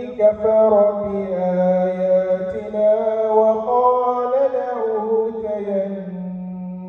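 A young man reciting the Quran in a slow melodic chant, his voice holding long drawn-out notes that step and glide up and down in pitch.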